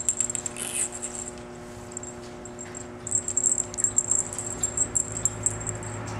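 Rapid scratching, clicking and rattling as a kitten bats and bites a wand toy on a hard tabletop, in two spells: about the first second and again from about three seconds in to near the end. A steady low hum lies under it.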